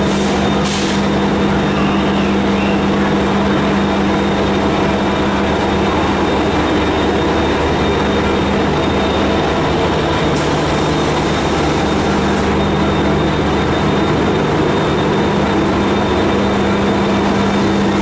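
EMD WDP-4B diesel-electric locomotive's 16-cylinder two-stroke 710 engine running loud and steady under power as it pulls away slowly and passes close by. A hiss lasts about two seconds, starting about ten seconds in.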